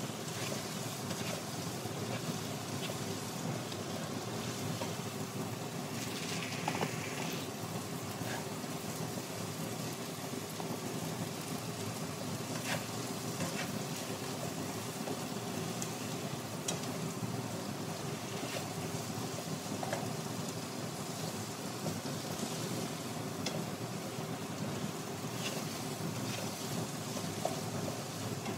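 Diced potatoes frying in oil in a non-stick pan: a steady sizzle as they are stirred, with a few light clicks scattered through it.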